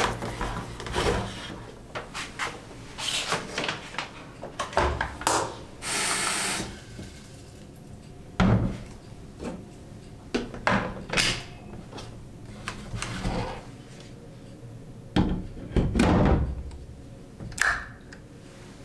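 Handling noise from an electric kettle being set up on a steel kitchen counter: scattered knocks, clicks and rubbing of plastic parts and packaging, with a brief rustle about six seconds in and a few firmer knocks later as the lid is fitted and the base switch is pressed.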